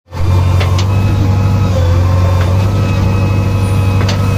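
A JCB backhoe loader's diesel engine running steadily, a deep, even drone.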